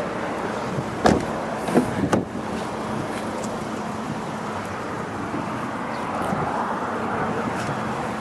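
Volkswagen Jetta's front door opened by its outside handle: a few sharp clicks and knocks of the handle and latch about a second in and again around two seconds in. A steady outdoor background hum runs underneath.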